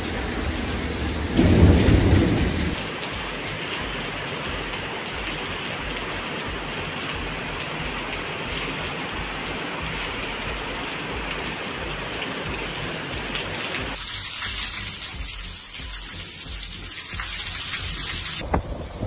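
Heavy rain falling steadily, with a loud low rumble of thunder about a second and a half in that lasts about a second.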